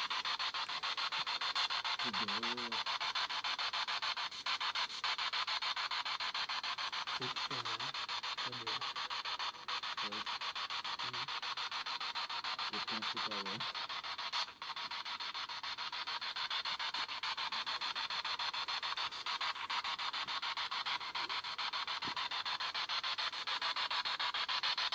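Spirit box sweeping radio stations: a continuous hiss of static, chopped very rapidly, with a few brief fragments of radio voices breaking through in the first half.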